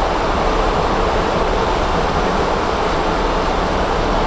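Steady, loud rushing noise inside an Airbus A300-600 cockpit, an even rush of air with no distinct tones or clicks.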